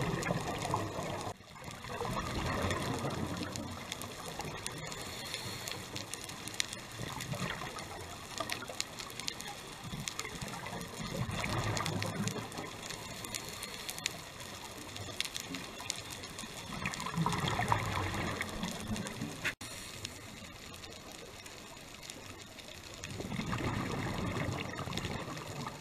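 Scuba diver breathing through a regulator underwater: bursts of bubbling exhaled air every few seconds, with quieter stretches between breaths and faint scattered clicks.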